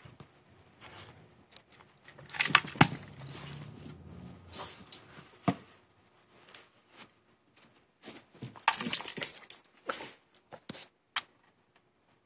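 A Boston terrier moving about as it chases a laser dot, its collar tags jangling in short bursts with scattered clicks. The jangling comes in two clusters, about three seconds in and again near nine seconds.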